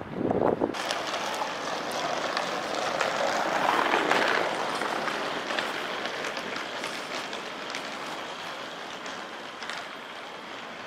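Outdoor rushing noise that swells to its loudest about four seconds in and then slowly fades, with a short low thump at the very start.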